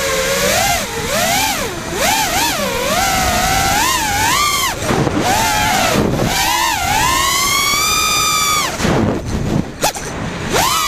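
FPV racing quadcopter's brushless motors and propellers whining, the pitch rising and falling quickly with each throttle change during freestyle flying. The whine drops low twice, on throttle chops, and punches back up near the end.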